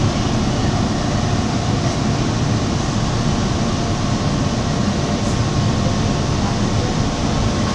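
Toronto subway train running through a tunnel, heard from inside the car: a steady rumble of wheels on the rails with hiss, and a faint steady whine over it.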